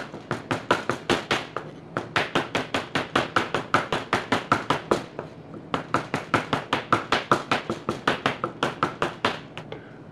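Small Japanese cleaver chopping raw salmon into tartare on a cutting board: quick, even knocks of the blade on the board, about five a second, with a short break about halfway through.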